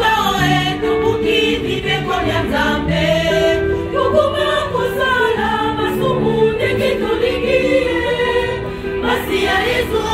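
Church choir singing a Lingala hymn in several voice parts, unaccompanied, with held notes moving together in harmony.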